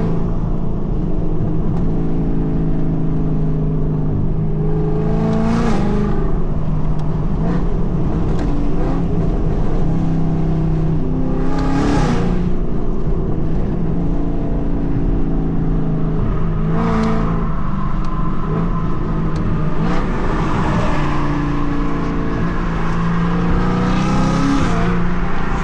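2024 Ford Mustang GT's 5.0-litre V8 with Kooks headers under way, the engine note climbing with acceleration and dropping back at each gear change, several times over. It is loud.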